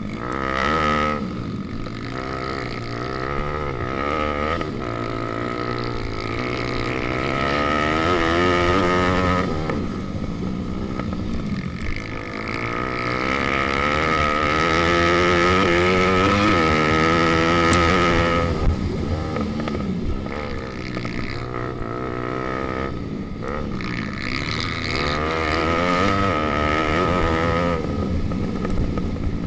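Pit bike's single-cylinder four-stroke engine revving up and dropping back again and again through gear changes and corners, heard from on board the racing bike.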